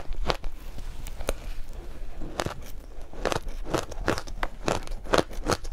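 Mouthfuls of soft shaved ice dusted with matcha powder being bitten and chewed, giving a run of crisp, uneven crunches about two or three a second. There is a brief lull about two seconds in, then the crunches grow denser.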